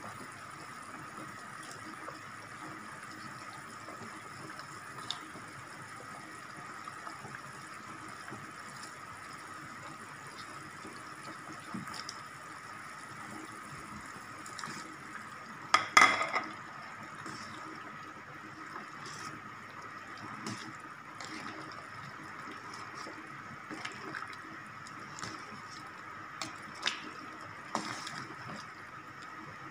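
A pot of tom yam soup simmering on the stove with a steady bubbling hiss. There is one sharp clatter about halfway through and a few light clicks later on.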